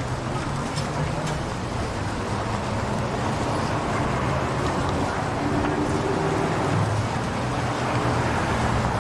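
City street ambience: a continuous wash of traffic with motor vehicle engines running, a low engine hum underneath and a murmur of voices. A vehicle's engine note comes up a little past the middle.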